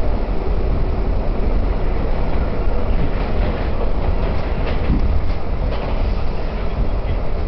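R68 subway car running at speed through a tunnel, heard from inside the car: a steady heavy rumble of steel wheels on rail, with scattered sharp clicks in the middle as it passes a station without stopping.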